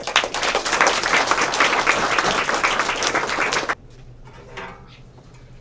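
Audience clapping in applause for about three and a half seconds, then cutting off suddenly.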